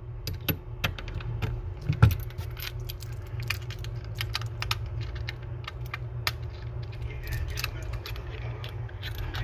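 Irregular small metallic clicks and clinks of a steel Breitling Superocean watch and its bracelet being handled, with a louder knock about two seconds in, over a steady low hum.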